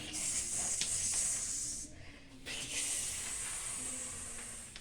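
A woman imitating the sizzle of an egg frying in hot oil with her mouth: two long hissing "shhh" sounds, the first breaking off about two seconds in, the second starting half a second later and fading out.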